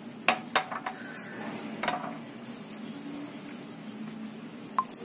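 Drinking glasses clinking and knocking as they are handled and set down on a stone countertop. There are several sharp clinks in the first two seconds and one more near the end.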